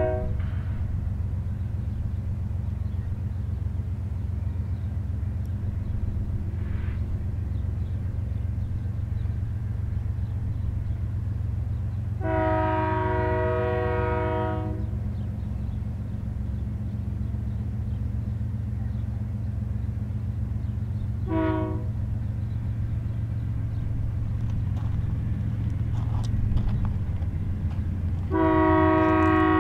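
Union Pacific diesel freight locomotives drawing closer with a steady low engine rumble, their multi-chime air horn sounding over it. A long blast comes about twelve seconds in, a short one about nine seconds later, and another long blast begins near the end. Together with the blast that ends just as it starts, this is the long-long-short-long grade-crossing signal.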